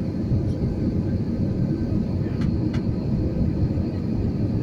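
Steady low rumble of an airliner landing, with two faint clicks about two and a half seconds in.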